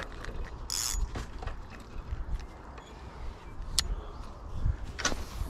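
Handling noise from fishing tackle in a small boat: a low steady rumble, a brief rustle about a second in, a single sharp click just before four seconds in, and another short knock near the end.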